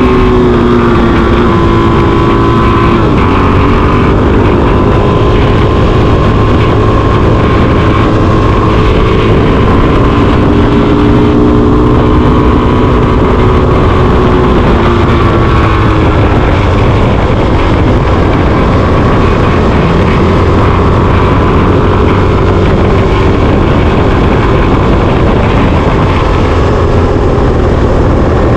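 Suzuki DR-Z400SM's single-cylinder four-stroke engine running on the move, its pitch rising and falling as the throttle opens and closes and gears change, over a steady rushing noise.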